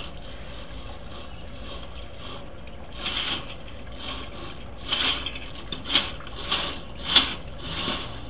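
Sewer inspection camera head being pushed and jostled against a blockage in a cast iron drain line, giving about seven irregular knocks and scrapes from about three seconds in, the sharpest near the end. A steady low hum runs underneath.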